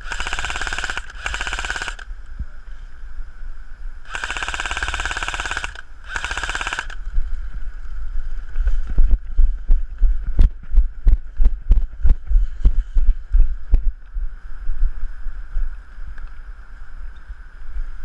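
Airsoft electric machine gun, a G&P Stoner 63, firing four short full-auto bursts. After that comes a run of separate sharp knocks and clicks lasting several seconds.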